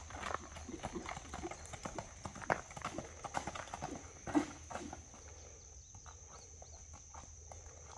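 Horse's hooves striking packed dirt in a run of uneven clopping steps, loudest in the first few seconds and fading after about five seconds as the horse moves away. A steady high-pitched hum runs underneath.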